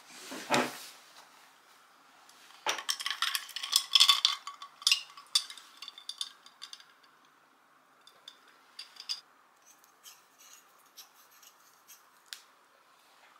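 Metal fork and spoon clinking and scraping against a Hasami Porcelain stoneware bowl while twirling spaghetti. There is a soft thump under a second in, a quick run of clinks a few seconds in, then scattered single clinks.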